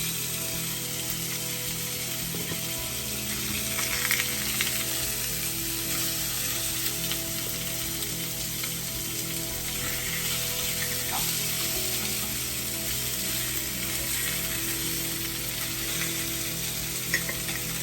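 Food frying in a pan, a steady sizzle, with a few short clicks of a utensil against the pan.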